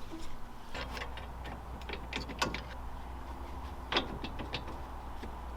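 Irregular metallic clicks and clinks of hand tools and steel parts being worked on a car's front suspension, the sharpest knocks about a second, two and a half and four seconds in, over a low steady hum.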